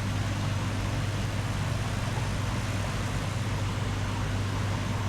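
Steady low machinery hum with an even hiss over it, unchanging throughout.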